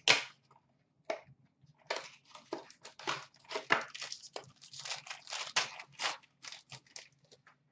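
Trading-card pack wrapper crinkling and tearing as it is pulled off and crumpled by hand: a quick run of short crackles starting about two seconds in.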